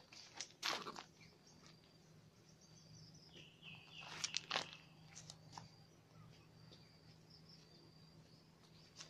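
Quiet outdoor ambience of faint, short, high chirps repeating throughout. A few sharp clicks of pebbles knocking together as the animals shift over the stones come about a second in and again around four seconds in.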